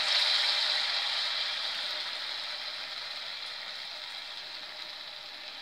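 Batter-coated chapati pieces deep-frying in hot oil, a steady sizzle that is loudest just after they go in and slowly dies down.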